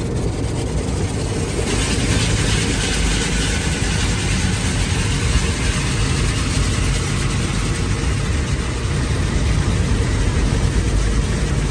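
Automatic tunnel car wash spraying water and soap onto the car's windshield and body, heard from inside the cabin as a steady hiss over a low rumble. The hiss of the spray grows stronger about two seconds in.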